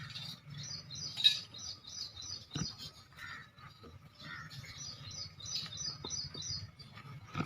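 Birds chirping: a quick run of short, high chirps, about three or four a second, with a single knock about two and a half seconds in.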